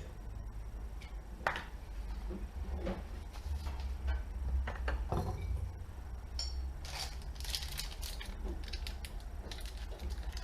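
Scattered clinks and knocks of small metal parts being handled on a workbench over a steady low hum, with quicker rattling and scraping from about halfway through.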